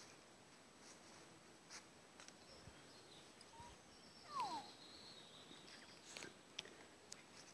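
Near silence, with a few faint ticks and one short call falling in pitch about four seconds in.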